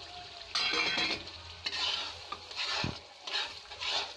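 Perforated metal spatula scraping and stirring green peas into frying masala in a metal pan, about five strokes over a faint sizzle, with a single knock near the middle.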